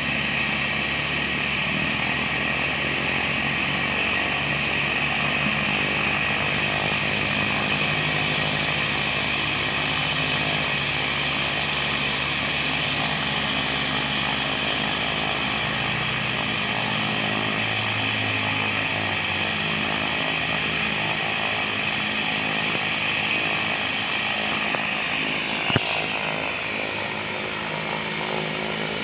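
A Cessna 208B Grand Caravan's PT6A turboprop engine is started on ground power and runs with a steady high turbine whine over propeller noise. A low rumble underneath fades out about halfway through. Near the end comes a single sharp click, after which the high whine shifts in pitch.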